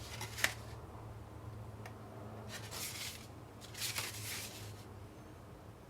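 Paper handling: a quick start guide booklet being flipped and slid, with a small click about half a second in and two brief paper swishes around three and four seconds.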